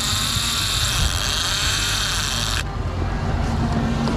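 Suzuki outboard motor running as the boat moves under way, a steady low rumble with water and wind hiss over it; the high hiss cuts off abruptly about two and a half seconds in.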